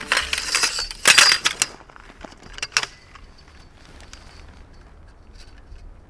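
Tent-pitching gear being handled: dense rustling and clattering for about two seconds, then two sharp metallic clinks a little under three seconds in.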